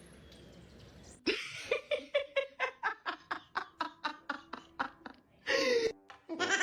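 A person laughing hard in a quick run of bursts, about five a second, starting suddenly about a second in and ending in a longer cry that falls in pitch.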